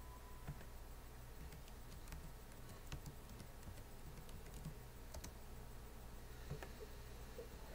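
Faint, irregular small clicks and ticks over a steady low hum.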